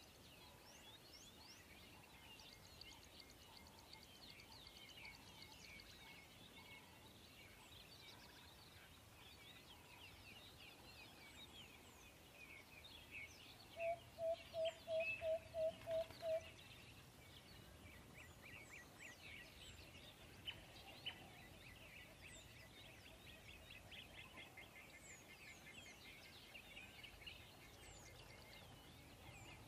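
Faint background birdsong of many small high chirps. About halfway through comes a louder run of about eight short, evenly spaced low notes.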